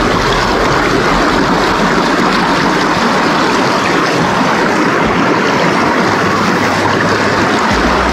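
Steady, loud rush of a rocky brook's riffles and a small cascade of whitewater close by.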